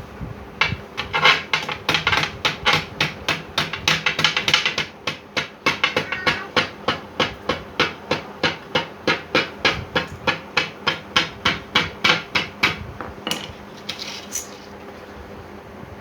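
Hammering, evenly paced at about three blows a second for some twelve seconds, then a few scattered blows near the end.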